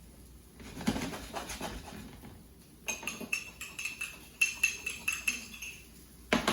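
Kitchen utensils and dishes being cleaned up: a scraping rattle, then a quick run of ringing clinks, and a single loud knock near the end.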